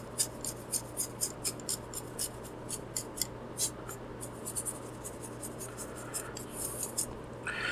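Bristle brush sweeping dust off a circuit board in quick, irregular strokes, about three or four a second.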